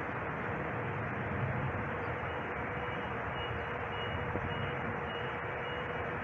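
Steady background hiss with a faint low hum. From about two and a half seconds in, a faint high electronic beep repeats about twice a second: fire alarm equipment signalling during an air-tube heat detector's operation-continuation test.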